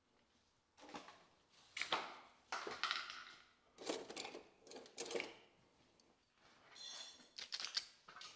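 Irregular short rustles and light metallic clinks as a gas torch and its hoses are handled and readied for heating.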